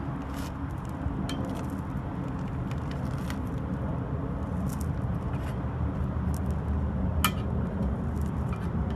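A steady low rumble with scattered light clicks and taps, as of metal tools being handled against a tire and rim.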